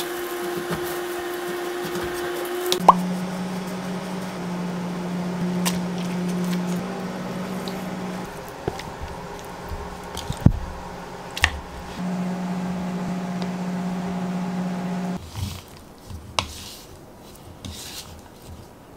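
Soft background music with held chords, over the wet squish of cut pork being stirred with seasoning and starch in a glass bowl and a few sharp taps of a wooden spoon against the glass. The music stops about three-quarters of the way through, leaving only the mixing sounds.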